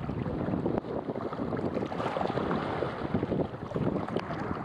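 Wind buffeting the microphone: a steady, rough rumbling noise.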